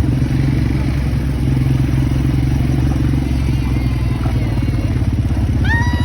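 Quad bike engine running steadily with a fast pulsing note. Near the end a person's voice gives a long call that rises and then falls.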